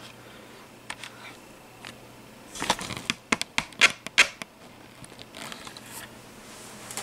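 A quick run of sharp clicks from laptop keys being pressed to pick Windows XP in the boot menu, with a few lighter taps before it. A faint steady low hum runs underneath.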